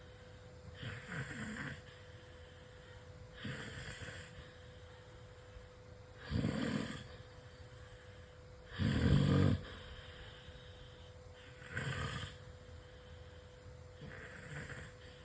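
A person snoring loudly, one snore every two to three seconds, the loudest about six and nine seconds in.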